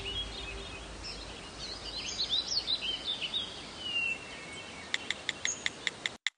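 Outdoor park ambience with birds chirping: several short rising and falling chirps about two to three seconds in, then a fast run of short ticking calls near the end, before the sound cuts off suddenly.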